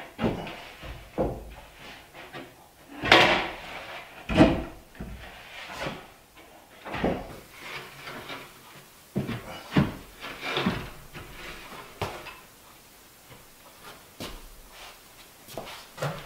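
A plywood panel knocking and scraping against a wooden cabinet frame as it is worked into place: a string of hollow wooden thumps and short scrapes, the loudest two about three and four and a half seconds in.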